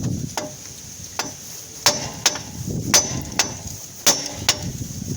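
Hammer striking steel at the tie rod end to shock its tapered stud loose from the steering knuckle. There are about eight sharp metallic blows, several coming in quick pairs, each with a brief ring.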